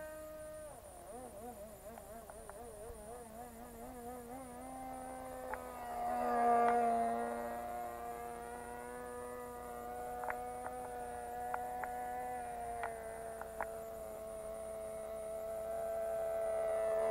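Small MP-JET .061 model-aircraft engine buzzing as the radio-controlled plane flies overhead. Its pitch wavers quickly for the first few seconds, then steps up and holds steadier while it grows louder. Near the end the pitch drops as the plane comes closer.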